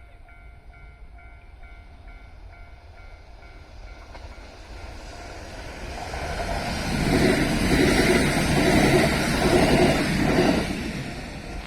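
Kintetsu electric train approaching and passing close by, its wheels clattering over the rails. It builds over a few seconds, is loudest for about four seconds, then fades away near the end.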